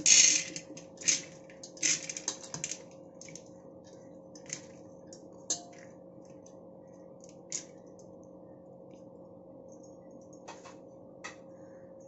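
Washed split chickpeas (chana dal) poured from a plastic tray into an empty aluminium pressure cooker: a brief rush of grains at the start and a flurry of clicks over the first few seconds, then scattered single clicks as the last grains are brushed off the tray into the pot.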